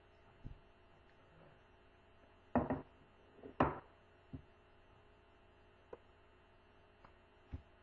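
A few short, scattered knocks and thuds over quiet room tone; the two loudest come a little past halfway through.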